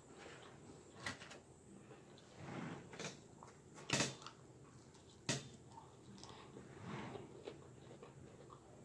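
Quiet eating sounds: a fork clicks against the salad bowl about four times as it spears Cobb salad, the loudest click with a bite about four seconds in, with soft chewing in between.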